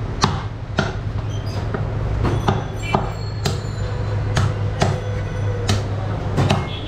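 Heavy butcher's knife chopping beef on a round wooden chopping block: about a dozen sharp chops at an uneven pace, roughly one or two a second. A steady low hum runs underneath.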